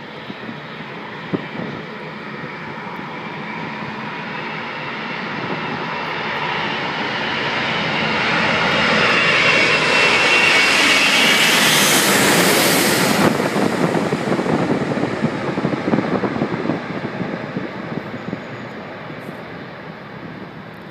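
Air France Airbus A380's four Engine Alliance GP7200 turbofans on low final approach: the engine noise builds steadily as the jet comes in, peaks about twelve seconds in with a high whine and a massive swoosh as it passes directly overhead, then falls away to a fading rumble.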